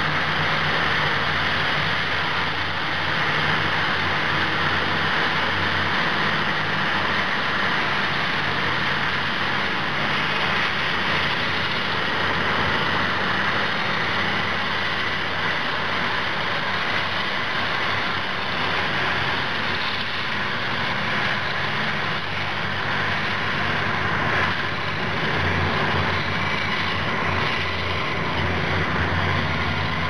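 Komatsu D575A-3SD Superdozer's 1,150 hp V12 diesel engine running steadily under load as the dozer pushes a blade full of earth. Its low note grows stronger in the last few seconds.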